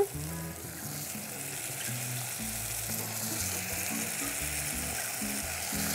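Chunks of raw potato sizzling in hot olive oil in a pot with sautéed onion and green pepper, a steady frying hiss.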